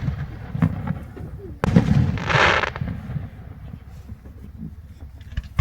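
Fireworks going off: a sharp bang about a second and a half in, followed soon after by a short burst of hissing crackle, with smaller thuds and pops around it.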